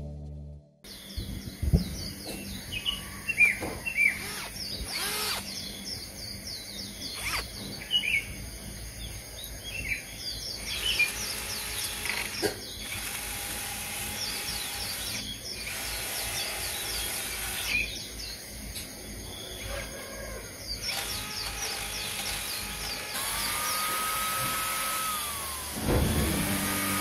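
Small birds chirping and tweeting over a steady low hum, with a few scattered knocks. Near the end a Makita electric drill whines up and back down, then runs louder as its disc is pressed against the driftwood.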